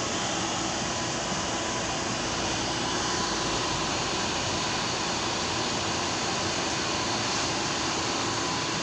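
Vintage Standard electric fan switched on and running steadily: an even rush of air with a faint steady hum.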